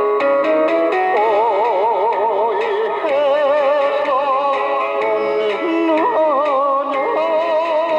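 Music from an old Korean popular song: a lead melody of long held notes with a wide vibrato over a steady backing accompaniment.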